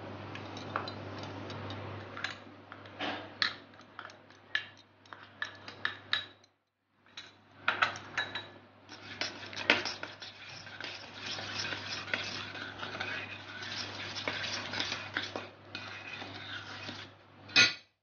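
Metal spoon clinking, tapping and scraping against a stainless steel bowl as powdered sugar is spooned into whipped cream, in irregular strokes with a louder clink near the end.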